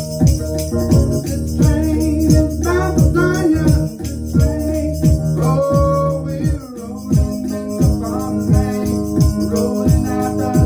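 A man singing while playing an electronic keyboard, over a steady percussion beat. His voice comes in phrases with short gaps between them.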